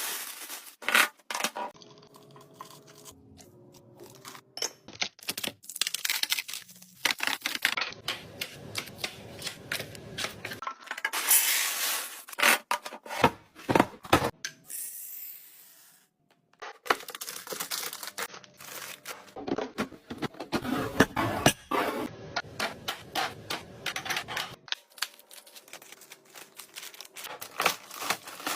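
Household containers and packaging being handled while restocking: many sharp plastic clicks, taps and knocks, with bursts of rustling and scraping between them. The sound breaks off briefly about halfway through.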